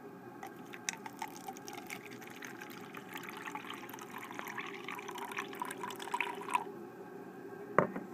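Thick red beet juice poured from an aluminium bottle into a plastic cup, splashing and gurgling for about six seconds before stopping abruptly. A single sharp knock follows near the end.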